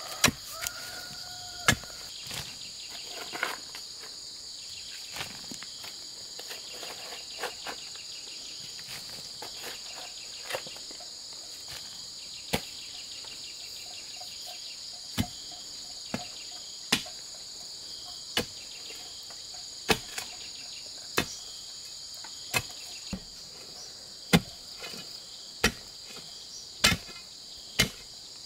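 Sharp knocks of a long bar tamping rocks and soil into a post hole, one every second or two and more frequent near the end, over a steady high-pitched insect chorus.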